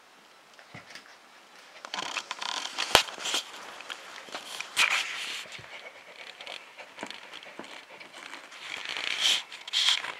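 Husky puppy scuffling on carpet and pawing at a tennis ball under an office chair: scattered scratching, rustling and small knocks, with one sharp knock about three seconds in.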